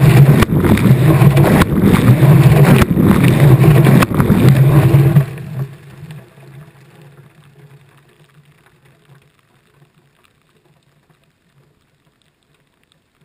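Washing machine heard from inside the drum: the drum turns with a loud, pulsing motor hum and sloshing noise, then stops about five seconds in and the sound fades away.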